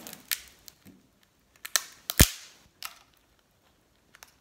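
Crisp, grilled lobster shell being cracked and snapped apart by hand: a handful of sharp cracks, the loudest about halfway through.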